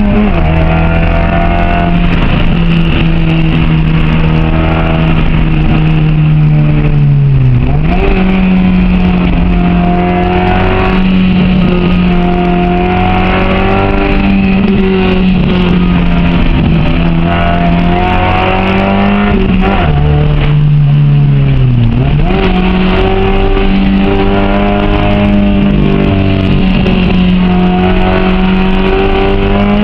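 Honda H22A four-cylinder engine in a 1998 Civic coupe running hard at steady high revs, with gear changes where the revs dip and climb back: just after the start, at about seven and a half seconds, and twice around twenty seconds.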